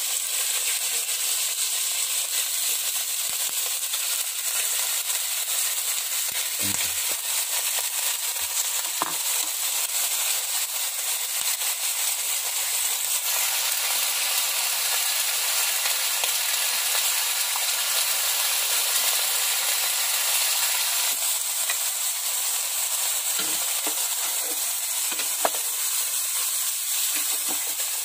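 Chicken pieces sizzling as they sauté with ginger and garlic in a steel pot: a steady frying hiss with a few soft knocks, and a spatula stirring near the end.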